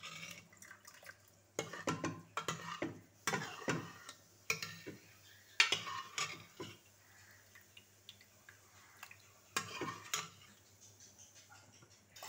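Metal ladle stirring thick sambar in a pressure cooker pot, clinking and scraping against the pot's sides in irregular bursts, with a lull of a few seconds after the middle.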